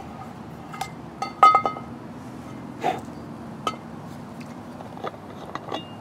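A small twig fire crackling in a folding steel wood stove, with scattered sharp clicks and a few ringing metallic clinks, the loudest about a second and a half in.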